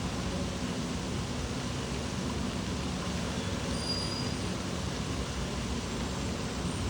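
Steady rush of running and splashing water from water park features, with a low steady hum underneath.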